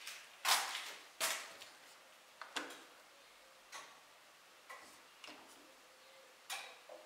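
A string of sharp, irregular clicks and knocks, about one a second, each dying away quickly; the two loudest come near the start.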